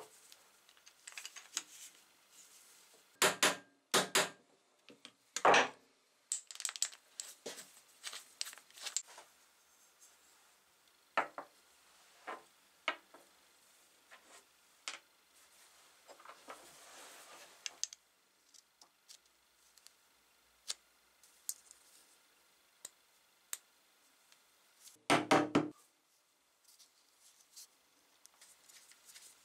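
Wooden drill handle and threaded steel bolt handled with gloved hands on a wooden workbench: scattered clicks and knocks as the parts are set down, picked up and fitted together. There is a short soft rubbing about halfway and a quick run of loud knocks near the end.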